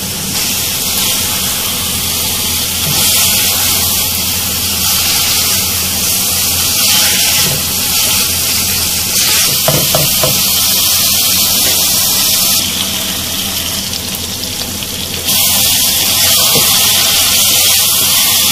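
Chicken and tomato masala sizzling in hot oil in a karahi over a high flame, being fried until the oil separates: a steady frying hiss that drops for a couple of seconds about two-thirds through, then comes back louder.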